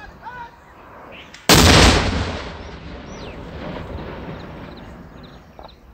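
A rocket launcher firing: one loud blast about a second and a half in, followed by a long rolling echo that fades away over the next few seconds.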